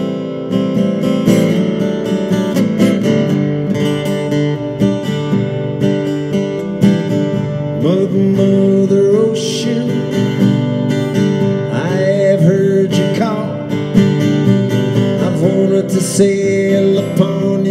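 Steel-string acoustic guitar strummed and picked in a slow ballad intro, with a man's voice singing along from about halfway in.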